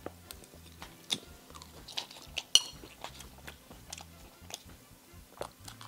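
People eating: chewing and crunching food, with scattered short clicks of chopsticks and utensils against bowls.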